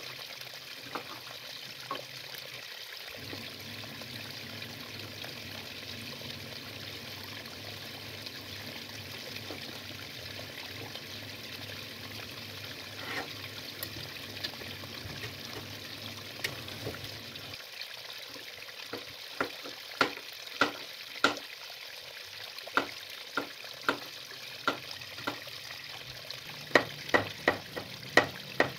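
A pot of water boiling on the stove with broccoli in it, a steady bubbling hiss with a low hum under it. About two thirds of the way in, a kitchen knife starts chopping garlic cloves on a cutting board: sharp knocks, scattered at first, then in quick runs.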